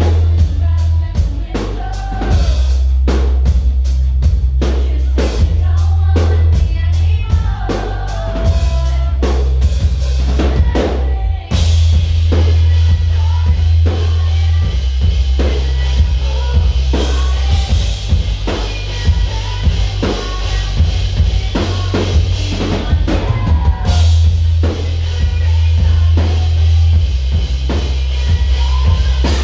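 Live band music heard from the crowd: a woman singing into a microphone over a drum kit and heavy bass. The band drops out briefly about eleven seconds in, then comes back in full.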